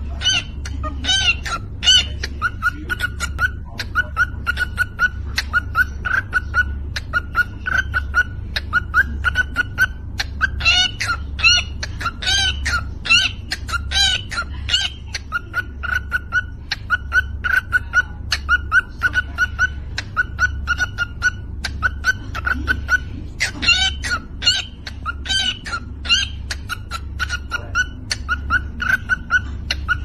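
Cockatiel making short clicking chirps in a steady rhythm, about two a second, with runs of higher whistled notes at times, over a low thudding pulse that keeps the beat.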